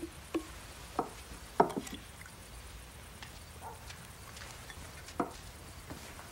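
Water dripping and splashing in a few separate drops, the loudest about a second and a half in, over a low steady background.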